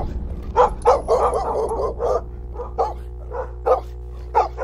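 A dog barking in a string of short barks, about a dozen, coming thickest in the first two seconds, over a steady low hum.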